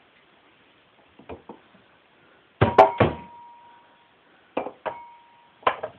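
Metal kitchenware knocking against an electric stove as it is handled: two faint knocks, then a loud double clatter about two and a half seconds in and three more knocks later. The loud clatter and one later knock each leave a brief ringing tone.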